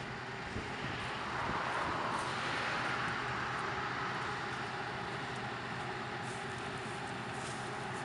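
Claas Lexion combine harvester running as it harvests barley: a steady machinery drone with a constant whine, swelling a little about a second and a half in.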